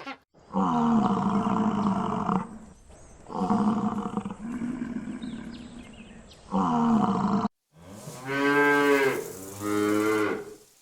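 Cattle mooing: three long moos, then, after an abrupt cut, a further pitched call that rises and falls in pitch.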